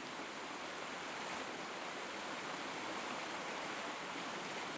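Creek water running, a steady even rushing sound.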